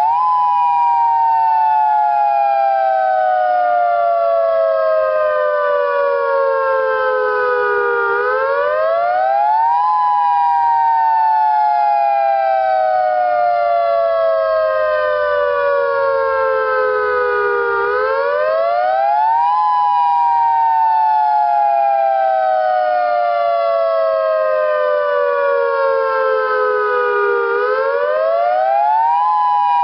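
Federal Signal Modulator electronic tornado siren sounding a dual-tone wail in a test. Two close pitches slide slowly down for about eight seconds, then sweep quickly back up, and the cycle repeats about every ten seconds.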